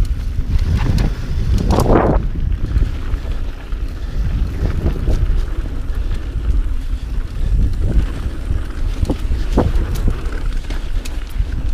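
Mountain bike riding down a dirt singletrack: wind rumbling on the microphone over tyre noise on dirt, with a few knocks and rattles from the bike over bumps, a sharp one about two seconds in and more near the end.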